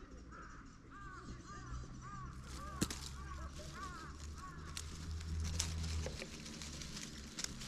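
A run of short, arching animal calls, about two a second, that stops about halfway through, with sharp clicks and rustling in the second half.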